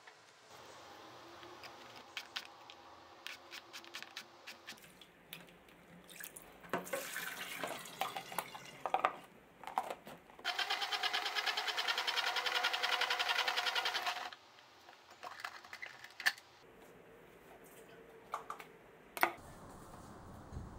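Plastic salad spinner spinning freshly washed salad greens: a steady, fast whirring rattle for about four seconds that stops suddenly. Before it, light knife clicks and taps, then a stretch of tap water running over the greens.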